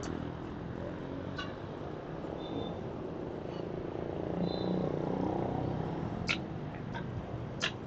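A motorcycle engine running with a steady low hum, with a few sharp clicks and two short high chirps over it.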